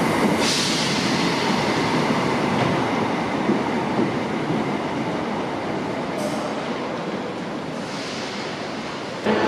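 Passenger train running along the track: steady wheel and running noise with a brief hiss about half a second in, gradually fading over several seconds, then an abrupt switch to a louder sound just before the end.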